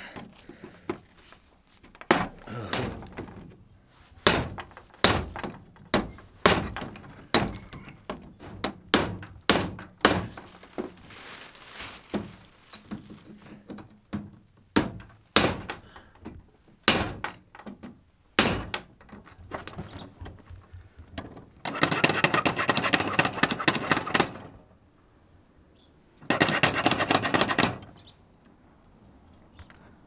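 Hammer blows driving a hand-forged iron door-ring fitting into a wooden door frame: a series of sharp, irregularly spaced strikes. After them come two stretches of dense, rapid clattering, about three seconds and two seconds long.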